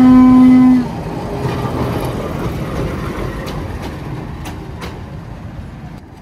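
1953 American-built diesel-electric locomotive's horn sounding one steady note that cuts off about a second in, then the locomotive running past with a few sharp wheel clicks over the rails, fading away.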